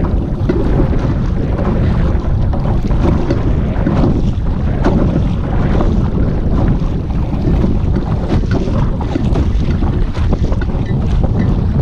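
Loud wind buffeting the microphone, a steady low rumble. Under it, choppy water splashes against a kayak and the paddle dips with each stroke.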